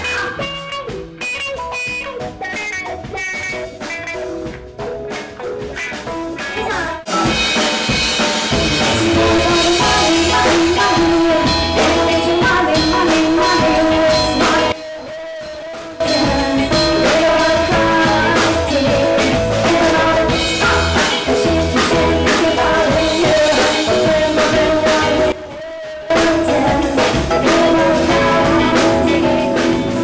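Live band music with electric guitar, keyboard and drums: a sparse opening that fills out into the full band about seven seconds in, then thins briefly twice.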